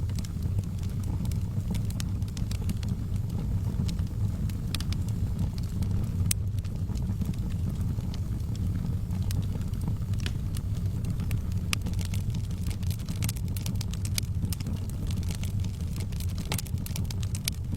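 Wood fire burning in a fireplace: a steady low rumble of flames with irregular, sharp crackles and pops throughout.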